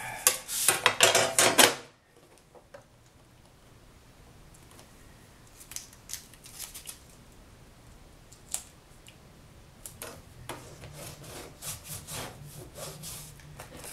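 Metal tools handled on a wooden work table: a quick burst of loud metallic clatter in the first two seconds as a steel ruler is set down and moved, then scattered soft clicks and rubbing, with a denser run of small clicks and taps near the end as a tape measure is handled.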